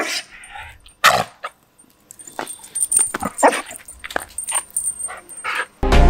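A dog barking repeatedly in short, sharp barks.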